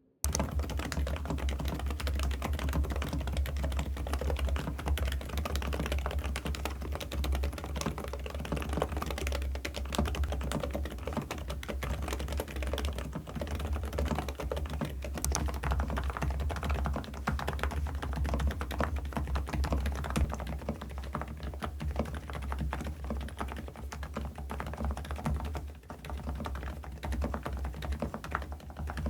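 ABKO AF108PRO gasket-mount mechanical keyboard with lubed low-noise switches being typed on quickly, a dense run of muted keystrokes that starts abruptly.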